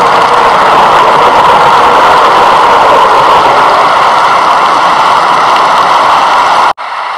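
Loud, steady rushing noise without any clear pitch, strongest in the middle range. It cuts off suddenly near the end and gives way to a quieter hiss.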